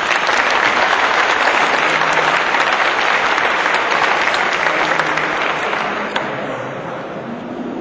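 Audience applauding: a dense patter of many hands clapping that holds steady, then begins to thin out and fade after about six seconds.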